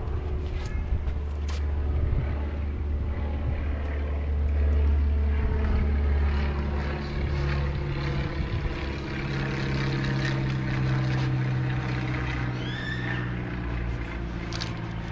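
Low, steady engine drone of a propeller airplane flying over, its pitch shifting slowly. A short high chirp comes near the end.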